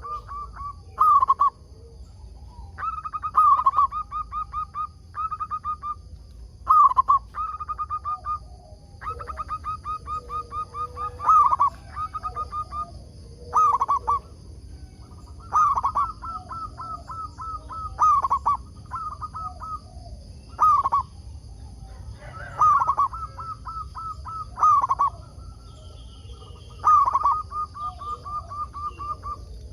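Zebra dove (perkutut) cooing: phrases repeat every one to two seconds, each a loud accented coo followed by a quick run of short clipped notes.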